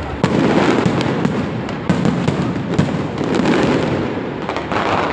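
Aerial fireworks display: a dense, continuous barrage of bangs and crackling bursts, starting with a sharp jump in loudness just after the start.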